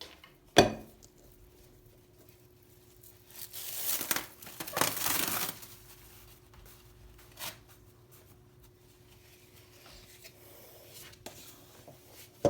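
Kitchen handling sounds: a sharp knock about half a second in, then a couple of seconds of rustling and tearing of packaging, over a faint steady hum.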